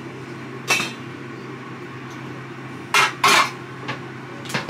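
Metal utensil scraping and clinking against a cooking pot in a few short strokes, over a steady low hum.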